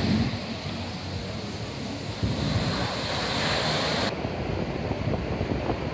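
Sea surf breaking and washing up a sandy beach, a steady rushing hiss. Wind buffets the microphone with a low rumble.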